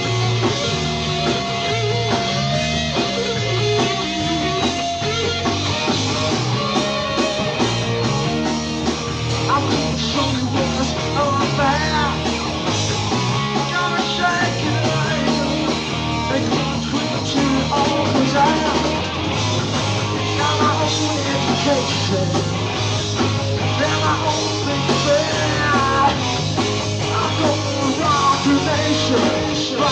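Rock band playing live: electric guitar, bass and drum kit, with bending lead notes running through the middle and later part.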